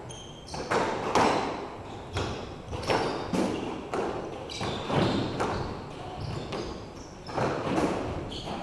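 Squash ball impacts echoing in an enclosed court: racket strikes and the ball hitting the walls, irregularly spaced about one or two a second, as in a rally on the next court.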